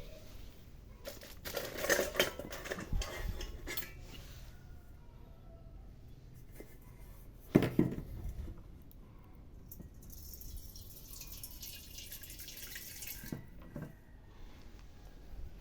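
Kitchen handling sounds: dishes and utensils clattering, a single loud knock about halfway through, then a few seconds of water hissing from a tap.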